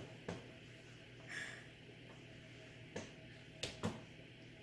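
Quiet room with a steady low hum, broken by four soft clicks, one near the start and three close together near the end, and a brief hiss about a second and a half in.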